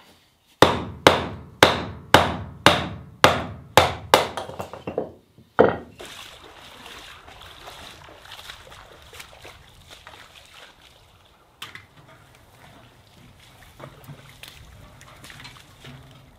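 A knife being batoned with a wooden stick through a piece of firewood to split kindling: about ten sharp wooden knocks in five seconds, the last one the loudest. A quieter, steady outdoor background follows.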